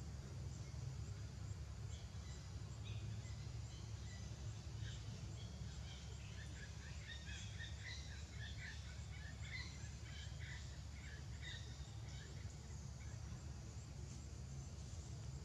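Outdoor ambience: a steady low hum, with a run of rapid, high-pitched chirps starting a few seconds in and fading out well before the end.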